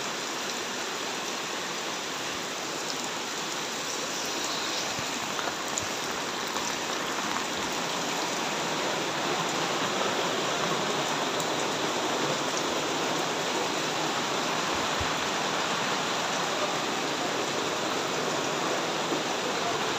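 Floodwater rushing steadily, an even, unbroken wash of water noise that grows a little louder from about six seconds in.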